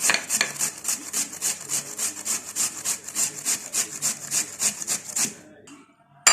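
A turnip being grated by hand on a grater: quick rasping strokes, about four or five a second, that stop about five seconds in.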